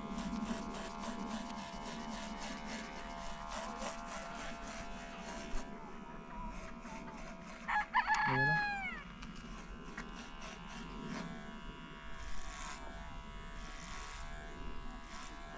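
Electric hair clippers buzzing steadily. About halfway through, a rooster crows once, loudly, its call falling off in pitch at the end.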